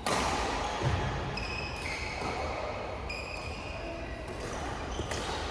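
Badminton play: sharp racket strikes on the shuttlecock, one right at the start and another about a second in, with several short high squeaks of court shoes on the floor.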